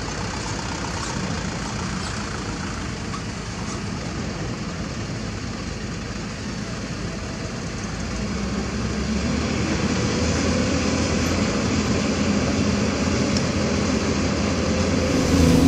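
Diesel engines of heavy quarry vehicles running steadily; about halfway through, a louder, even engine hum takes over.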